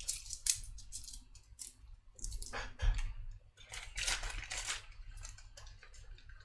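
A cut strip of plastic component carrier tape being coiled back up by hand, with irregular crinkling and small clicks.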